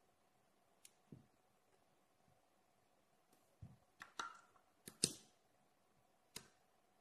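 Steel balls and magnetic rods snapping together in short, sharp metallic clicks. They come scattered at first, then bunch into a cluster about four to five seconds in, which holds the loudest click, as balls are taken from a wooden box and attached to the structure.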